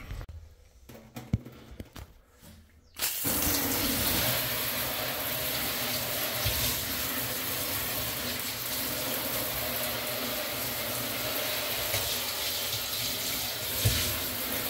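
Handheld shower spraying water onto a metal detector's search coil and a stainless steel sand scoop in a shower tray, rinsing off beach sand; a steady rush of spray that starts suddenly about three seconds in. Before that there is a quiet stretch with one sharp knock.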